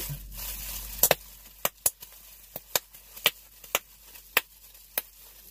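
Bubble wrap crinkling as it is squeezed, then about ten single bubbles popping one at a time at irregular intervals.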